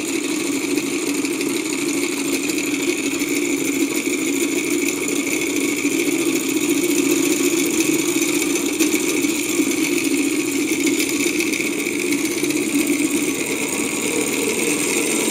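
Small twin-piston Stirling engine running steadily with its propeller spinning: a continuous mechanical clattering of the running gear with the propeller's whir. The owner takes the clattering for a sign of a lot of friction inside the engine.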